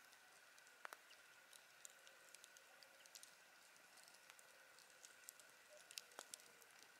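Campfire crackling: faint, irregular small pops and snaps, two of them a little louder, about a second in and near the end, over a faint steady hiss of the nearby river.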